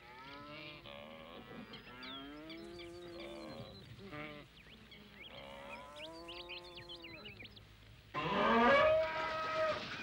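Buffalo lowing in long, drawn-out moos that rise and fall in pitch, several calls overlapping, with faint high chirps over them. A louder, higher call cuts in suddenly near the end.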